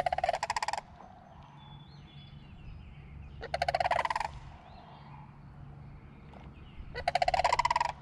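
Wild turkey gobbling at dawn: three loud, fast-rattling gobbles, each under a second, about three and a half seconds apart, with faint bird chirps in between.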